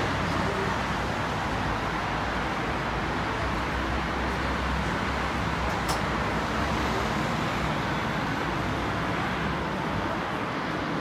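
Boeing 787 jet engines heard from a distance as a steady roar during takeoff.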